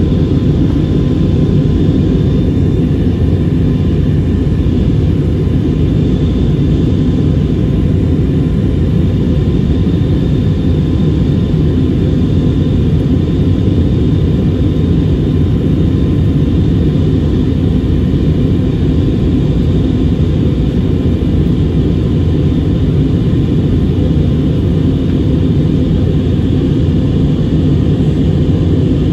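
Steady cabin noise of an Airbus A321neo airliner in flight: a loud, even low rumble of engines and airflow, with a few faint steady whining tones above it.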